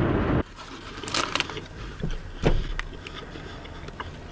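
Chewing with the mouth close to the microphone: scattered wet clicks and smacks over a faint low rumble. The louder background cuts out about half a second in.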